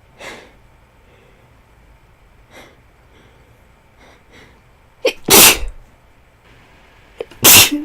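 A young woman with a head cold sneezing twice, about two seconds apart, each loud sneeze preceded by a short sharp intake of breath. The sneezes are deliberately induced.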